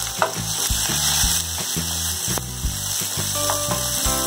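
Background music of low notes changing about three times a second, over chopped onion and green chillies frying in oil in a wok, with a few sharp clicks and a spatula stirring near the end.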